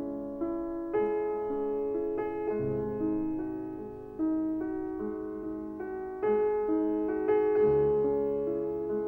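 Solo piano music playing a slow, gentle melody over sustained bass notes, each note struck and left to fade.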